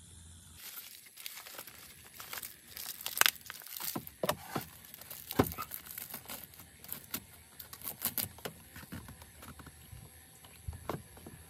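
Fresh green leaves being crumpled, torn and stuffed into the open end of a green bamboo tube, plugging it: close, irregular crinkling and rustling with sharp crackles, starting about half a second in.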